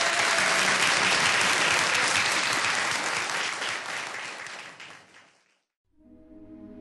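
Audience applause, dense clapping that fades out about five and a half seconds in; soft sustained ambient music begins just before the end.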